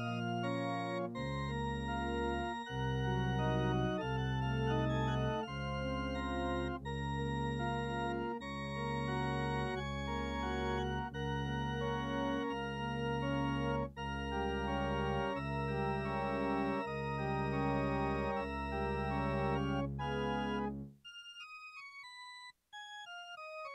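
Organ playing held chords over deep pedal bass notes, the chords changing every second or so. About 21 seconds in the chords stop and a quieter run of single notes steps downward.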